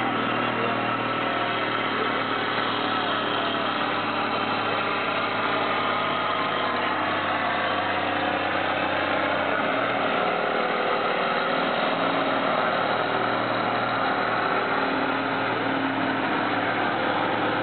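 Pulling tractor's diesel engine running steadily under heavy load as it drags a weight-transfer sled down the track.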